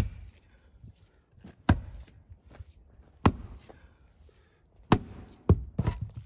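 Splitting maul striking a large 18-inch red oak round, several sharp blows about a second and a half apart, then a quicker cluster of knocks near the end. The wood needs multiple hits to split.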